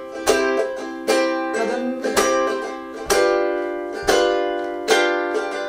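Ukulele strummed in a bouncing, swung 16-beat shuffle rhythm, the chords ringing between strokes, with a strong accented strum about once a second and a change of chord about three seconds in.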